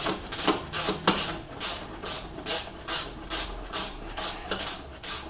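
Ratcheting wrench clicking in quick back-and-forth strokes, about three to four a second, backing out a bolt.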